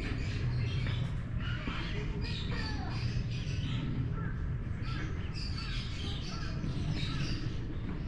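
A busy chatter of short chirping and squawking calls, over a steady low hum.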